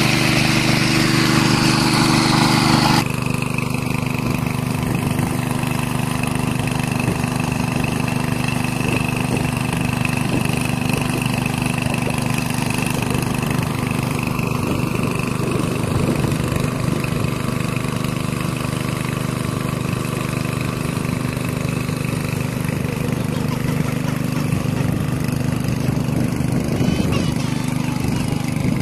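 Small petrol engine of a water pump running steadily. For the first three seconds water gushes out of its outlet pipe, and this stops abruptly, leaving the engine alone.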